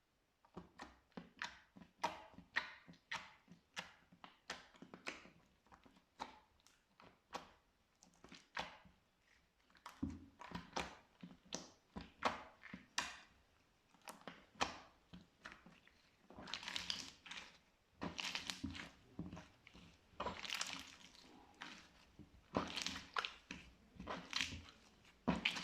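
Slime being squished and poked by hand: a quick run of short sticky pops and clicks, two or three a second, turning into denser squelching in the second half.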